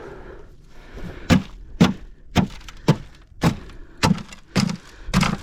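A steady series of sharp, heavy thuds, about two a second, starting about a second in.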